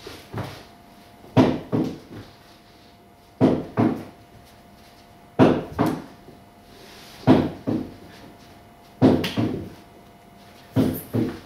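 Dull percussive knocks in a slow, steady rhythm, mostly in pairs, one pair about every two seconds, over a faint steady hum.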